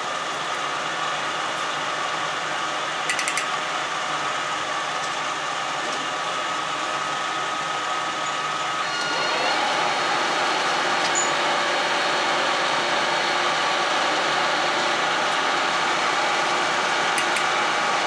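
Metal lathe running, a steady machine hum and whine; about nine seconds in it rises in pitch and gets louder.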